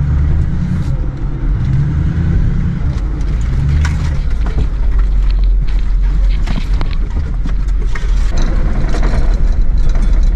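Pickup truck driving slowly over a rough, rocky dirt road: a steady low engine and road rumble with frequent rattles and knocks as it jolts over the bumps.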